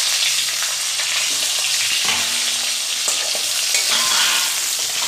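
Potato pieces sizzling as they fry in hot oil in a kadai, with a spatula stirring and scraping them around the pan.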